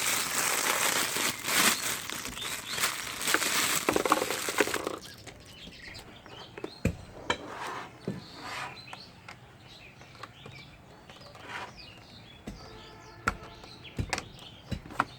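Plastic packaging being handled: a loud crinkling rustle for about the first five seconds that stops abruptly, then quieter scattered clicks and taps of hard plastic.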